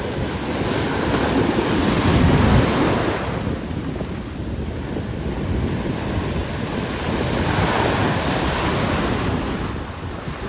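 Sea surf breaking and washing around the shallows, a continuous rush that swells louder about two seconds in and again near eight seconds, with wind buffeting the microphone.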